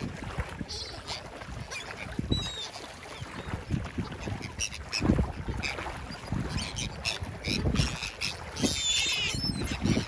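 Brown pelicans and gulls splashing and flapping as they feed in shallow water, with wind rumbling on the microphone. Gull calls ring out now and then, briefly about two seconds in and in a quick burst near the end.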